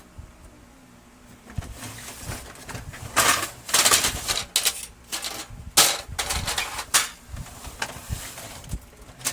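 Irregular plastic clicks, knocks and scraping, loudest in the middle, as the casing of a Brother DCP-L2540DW laser printer is handled and taken apart.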